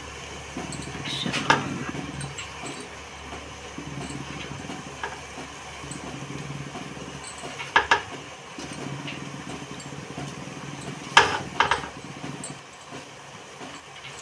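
Steady low rumble of a stovetop pot of water boiling beneath a perforated stainless-steel steamer. A few sharp clinks on the steel plate, about four in all, as pieces of dough are set down.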